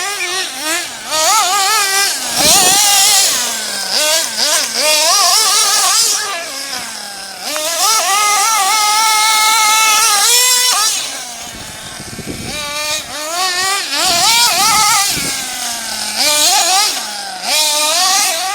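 A GS Storm 1/8-scale buggy's 3.0 cc nitro engine, high-pitched, revs up and down in repeated surges as the buggy accelerates and lets off. About halfway through it holds a longer high, steady run before dropping away.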